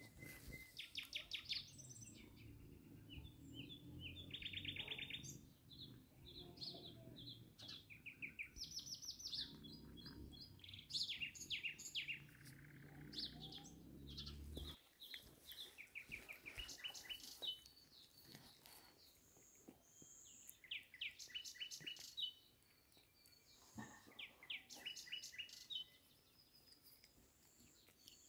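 Small songbirds chirping and trilling in quick runs of notes, over and over. Under them is a low rumble that stops abruptly about halfway through.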